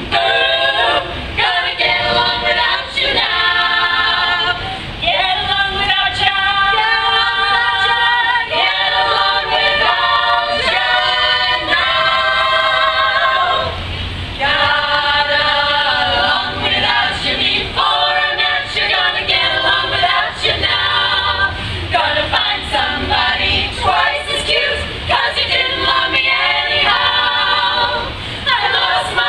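Women's a cappella group of about ten voices singing in close harmony through stage microphones, with no instruments, pausing only briefly about halfway.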